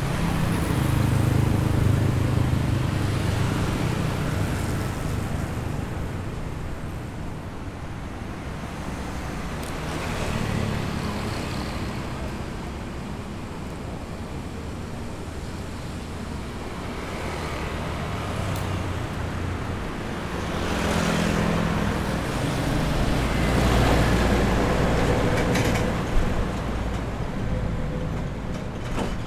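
Busy street traffic: cars and motorbikes passing one after another, their engines and tyres swelling and fading, over a steady background hum, with one short sharp knock near the end.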